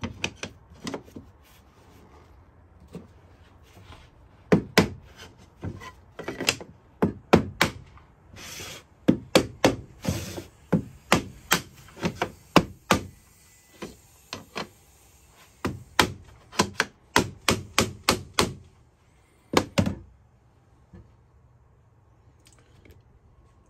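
Soft-faced mallet knocking on a plastic tapping block to drive vinyl click-lock floor planks together at their joints: many sharp knocks in irregular runs, some quick and close together, which stop near the end.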